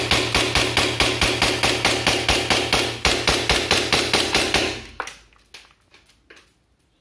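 CZ P-09 gas blowback airsoft pistol firing a long, rapid, even string of shots, about six a second, from an extended magazine. The firing stops abruptly about five seconds in, followed by a few faint clicks.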